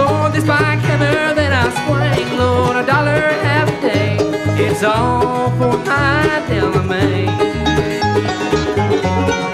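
Bluegrass band playing an instrumental break on banjo, acoustic guitar, mandolin, dobro and electric bass, with the bass on a steady beat of about two notes a second under a lead line of sliding, bending notes.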